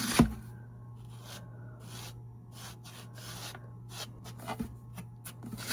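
Distress ink being rubbed lightly around the edges of a box: soft, irregular scratchy strokes, with a sharp knock right at the start.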